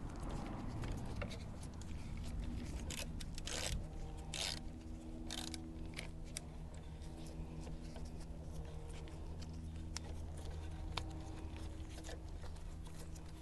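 Scattered light clicks and scrapes of hand tools and screws as the headlight's mounting screws go in, the busiest stretch about three to six seconds in, over a steady low hum.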